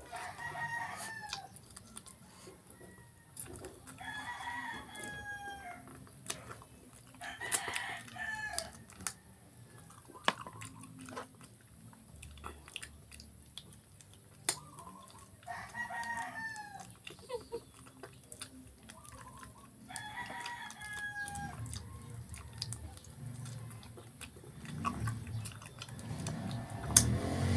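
Chickens calling in a run of short calls every few seconds, with rooster crowing among them. Faint clicks of eating come in between, and a low rumble builds near the end.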